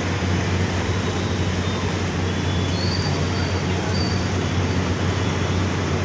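Steady rushing noise with a constant low hum, typical of the high-pressure gas burner firing under a large street-stall tawa.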